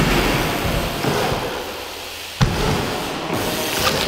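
BMX bike tyres rolling and rushing over skate park ramps, with a single sharp thud about two and a half seconds in.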